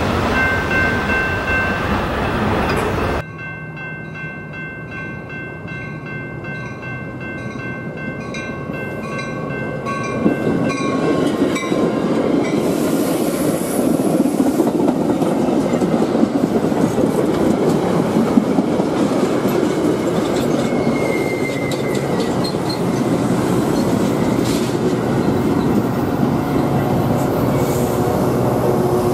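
A passenger train runs past and away for the first three seconds. After a sudden change, a horn chord is held for several seconds while a crossing bell dings, then a Metra commuter train of stainless bilevel gallery cars passes close and loud, its wheels rolling and clacking over the rail joints.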